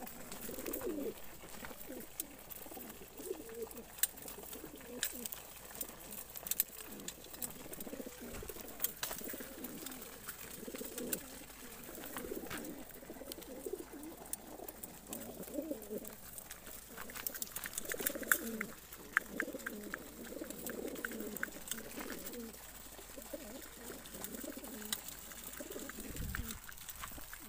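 Racing pigeons cooing continuously in crowded transport crates, with scattered sharp taps and a quick run of clicks a little past halfway.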